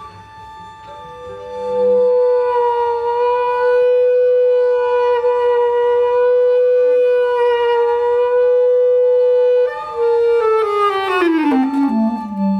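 Experimental new-music chamber piece: a single sustained pitched note with a reedy, wind-like tone swells in about two seconds in and is held steady, then slides slowly downward in pitch near the end.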